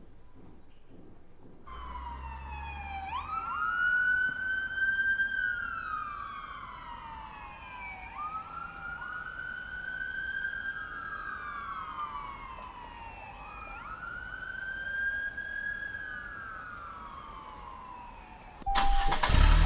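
Electronic emergency-vehicle siren wailing: the pitch climbs quickly and then slides slowly down, three times over. Near the end a much louder sound cuts in suddenly.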